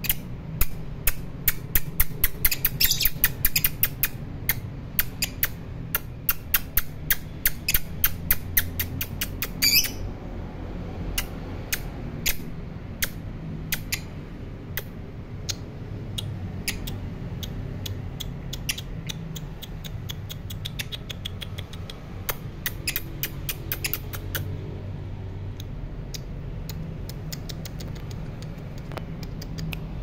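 Caged lovebirds chirping: a fast run of sharp, high chirps for the first ten seconds or so, thinning to scattered chirps until about two-thirds through, then dying away over a low steady hum.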